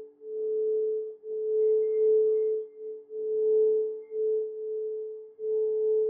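Quartz crystal singing bowl played with a mallet, ringing one steady pure tone with a fainter lower tone beneath it; the sound swells and fades in waves about every second and a half.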